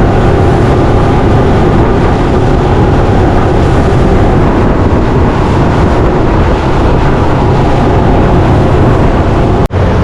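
Motorboat under way at speed: the engine drones steadily under loud wind and water noise. The sound drops out for an instant near the end.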